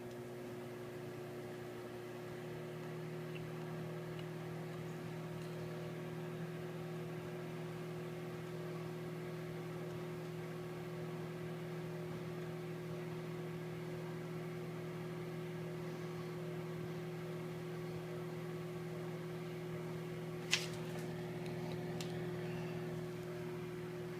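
Microwave oven running: a steady hum of the magnetron and fan, which settles into a fuller tone about two seconds in. A single sharp click about twenty seconds in.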